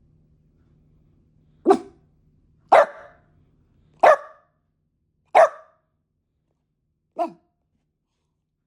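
A dog barking five times, single sharp barks about a second apart with a longer gap before the last, quieter one: annoyed demand barking.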